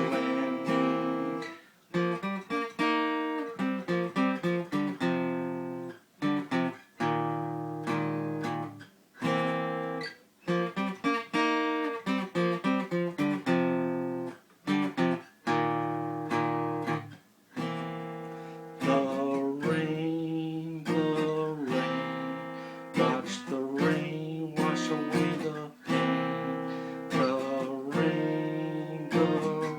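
Solo acoustic guitar playing a mellow blues-rock instrumental passage, plucked and strummed chords with brief pauses between phrases.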